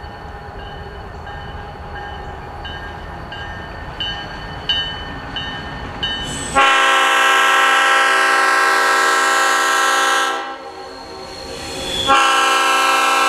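A diesel locomotive's multi-chime air horn blowing two long blasts, the second starting about a second before the end. Before the horn, the approaching locomotive's engine rumbles low under a faint bell dinging about twice a second.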